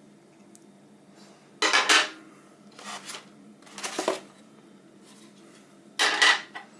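Hard plastic toothbrush accessories being handled and put down, in about four short bursts of knocking and rubbing. The loudest come about two seconds in and near the end.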